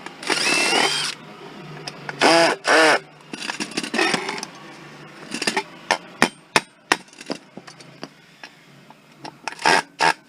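Metal scrap being taken apart by hand: a scraping rasp at the start, two short whirring bursts that rise and fall in pitch about two seconds in, then a run of sharp metal clicks and knocks.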